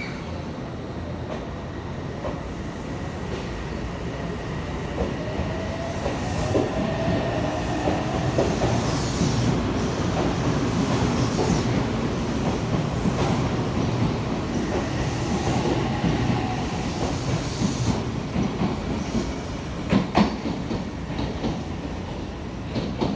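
Odakyu 8000 series six-car electric train running past a station platform: a steady rumble of wheels on rail, with the motor's tone rising in pitch twice as it passes. Near the end come a few sharp clacks of wheels over rail joints.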